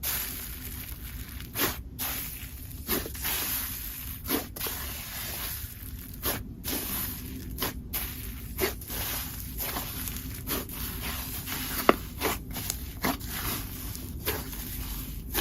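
Slime being squeezed and worked by hand, with sharp wet clicks and pops about once a second, one louder pop near the end.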